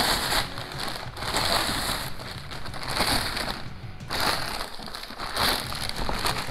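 Clear plastic wrapping crinkling and rustling in repeated bursts as it is pulled off a steel trap bar frame.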